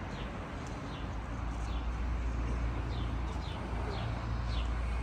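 Low, steady engine and road rumble inside a taxi, with birds outside giving short, falling chirps over and over.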